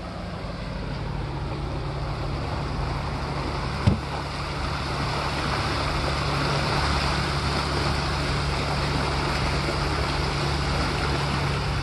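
Boat engine running steadily while underway, over the rush of water churning in the wake behind the stern. A single short knock about four seconds in.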